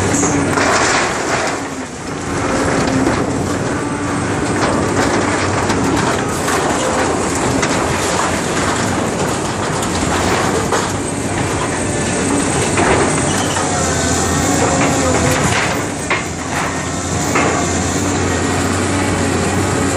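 Caterpillar 328D excavator's diesel engine running steadily under load while its demolition grapple tears into a wood-frame building: continuous crunching and splintering of timber and scraping, squealing sheet-metal roofing, with sharp cracks and knocks throughout.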